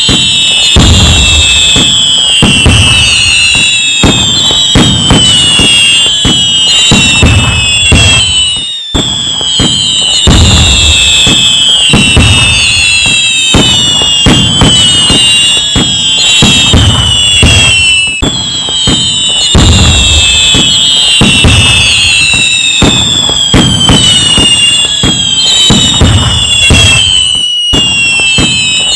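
A loud fireworks barrage: many whistling fireworks, their whistles falling in pitch, over a dense run of crackling bangs and deeper booms. The same pattern comes round again about every nine seconds, each time after a brief dropout.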